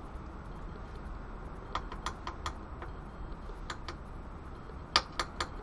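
A spoon clicking against cookware while scooping up chili and rice: a few light clicks in small groups about two seconds in and again near four seconds, then three sharper ones near the end, the first of them the loudest.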